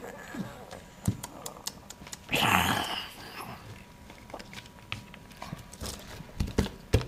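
Plastic toy figures clicking and knocking together as they are moved about, with one short growling roar from a voice, in imitation of a dinosaur, about two and a half seconds in.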